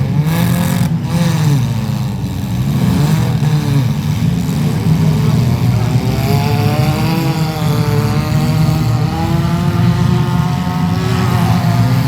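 Several demolition derby car engines running and revving together, their pitches rising and falling over one another.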